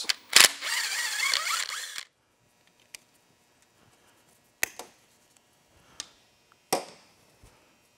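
Ratchet wrench clicking rapidly for about two seconds while backing out the 8 mm bolts of an engine's cam chain tensioner, then four separate sharp metal clicks and taps.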